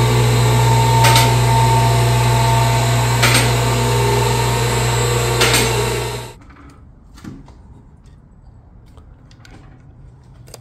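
A power tool's motor running loudly and steadily, with a sharp hit about every two seconds. It cuts off abruptly about six seconds in, leaving a quiet stretch with faint clicks and knocks.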